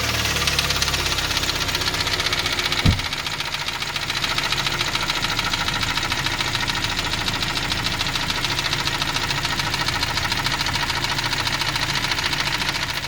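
Kia car engine running steadily with a fast, even knock. A knock at 166,000 km, which is being checked for scoring on the cylinder walls. One sharp click about three seconds in.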